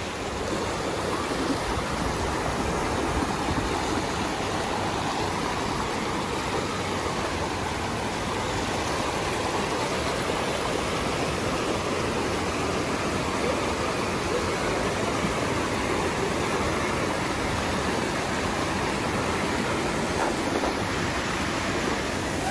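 Mountain creek water rushing and splashing over boulders in small cascades, a steady rush.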